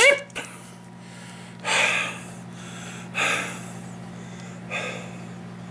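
A man breathing hard: four short, noisy breaths about a second and a half apart, over a steady low hum.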